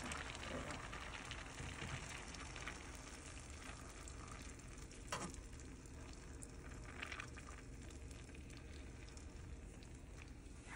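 Shrimp frying in a pan of melted butter, a faint steady sizzle, with a couple of soft knocks from a spoon stirring in the pan about halfway through.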